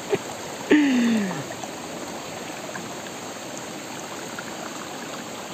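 Shallow rocky stream flowing steadily. About a second in, a short vocal sound from a person, falling in pitch.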